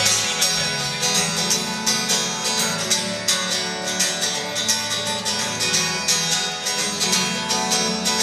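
Acoustic guitars strummed in a steady rhythm.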